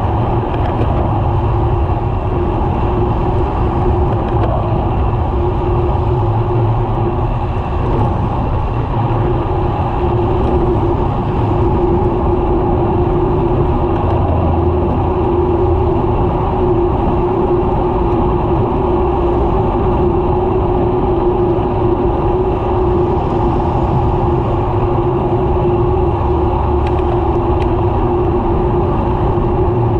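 Steady rumble of wind and road noise from a bicycle ridden at speed on a multi-lane road, with car traffic passing alongside. A steady low hum runs through it.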